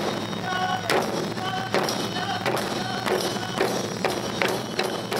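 Japanese taiko drum ensemble playing: heavy strikes on large barrel drums in a steady beat, with quicker, lighter drumming between.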